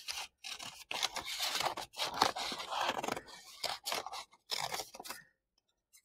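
Scissors cutting through folded black paper: a run of irregular snips and rasping strokes that stops about five seconds in.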